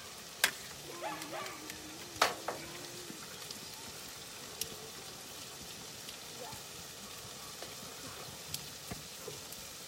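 Steady sizzle of food frying, with two sharp knocks, about half a second and two seconds in.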